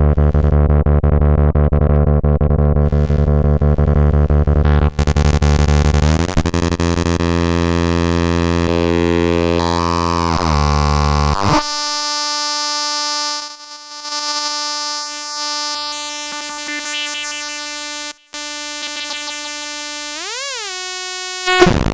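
Lego Punk, an Atari Punk Console-style noise synth, played through a Kaoss Pad 3 effects unit. A low, buzzy electronic drone slides in pitch, then about halfway cuts suddenly to a steadier, higher tone. Near the end it swoops quickly up and down in pitch.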